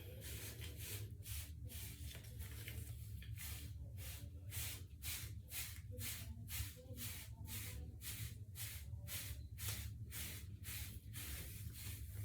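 A wave brush's bristles swept again and again through short, lathered hair, about two to three brisk strokes a second, over a low steady hum.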